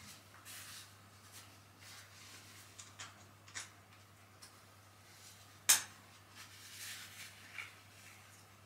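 Soft rustling and small light clinks, such as a dog's harness and leash fittings make as the dog is held, with one sharp click a little before the six-second mark.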